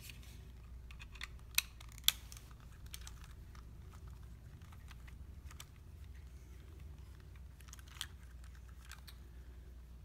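Small clicks and taps of a screwdriver, mounting screws and a bracket against a Samsung 2.5-inch SSD as the side-mount screws are driven in, with two sharper clicks about one and a half to two seconds in and another near eight seconds. A low steady hum runs underneath.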